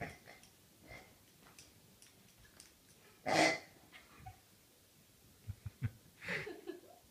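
Rhodesian Ridgeback puppy snorting, two short breathy snorts, one about three seconds in and one near the end, with a few light knocks just before the second.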